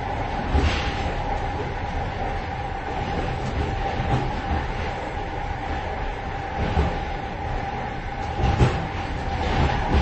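Inside the vestibule of a moving train: a continuous rumble and rattling clatter of the wheels running over the rails, with a steady thin whine. A few heavier knocks come through, about a second in, near seven seconds and near the end.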